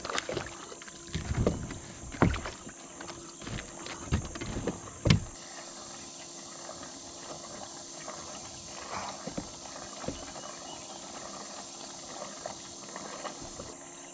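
A run of knocks and bumps on a plastic fishing kayak as rod and gear are handled, the loudest about five seconds in. Under them and after them is a steady, high insect chorus.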